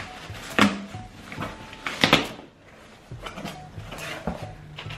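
Cardboard shipping box being opened by hand: packing tape torn off and the flaps pulled open. There are two loud, sudden rips, about half a second and two seconds in, with quieter cardboard knocks and rustles between.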